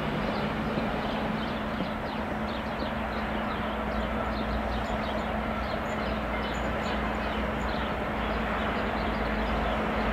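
Hr1 'Ukko-Pekka' steam locomotive running slowly into a station: a steady rumble with a constant low hum and light sharp ticking over it.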